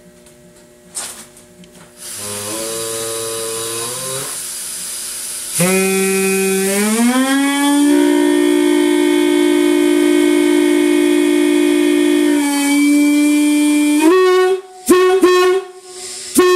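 One bell of a Nathan Airchime M-5 locomotive air horn blown on compressed air while its pitch is being set. A hiss and a soft hum come in about two seconds in. Then a loud note starts whose pitch glides up as the bell is tightened, and it settles into a steady, solid note held for several seconds; after it cuts off, a few short blasts follow near the end.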